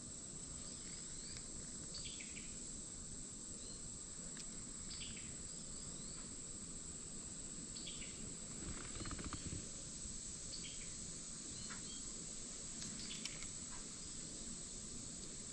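Steady high-pitched chorus of insects, with a bird chirping briefly every second or two over it. About nine seconds in there is a brief low rustle.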